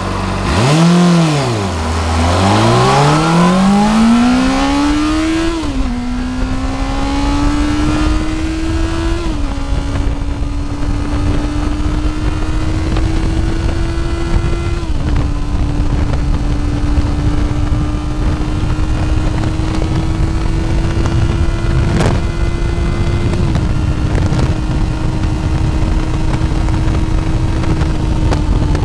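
Honda CBR600RR sport bike's inline-four engine, heard from the rider's seat. The revs dip and climb at the start, then rise through the gears with two upshifts in the first ten seconds. After that it settles to a steady cruise, with small drops in pitch twice more and wind rushing past. One brief sharp click comes about two-thirds of the way through.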